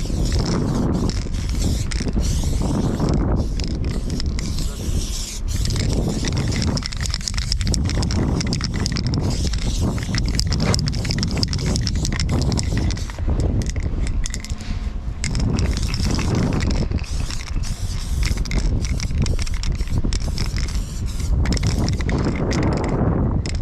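Aerosol spray-paint can hissing on and off in bursts, over a steady low rumble from wind and handling on the body-worn microphone, with scattered clicks and crunches of movement in snow.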